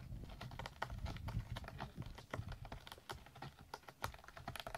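A cat's claws scratching and catching on a corrugated cardboard scratcher: a run of short, irregular clicks, several a second.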